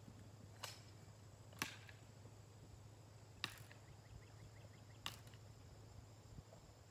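Near silence with a steady low hum, broken by four sharp clicks one to two seconds apart.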